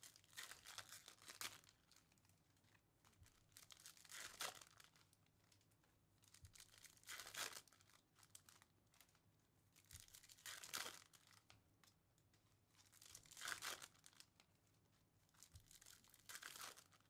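Faint tearing and crinkling of 2024 Bowman baseball card pack wrappers being ripped open, in about six short bursts every three seconds or so.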